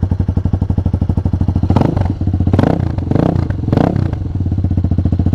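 Hawk 250's 230cc single-cylinder four-stroke engine idling through a JFG bolt-on aftermarket exhaust, blipped four times in quick succession about two seconds in, then settling back to idle.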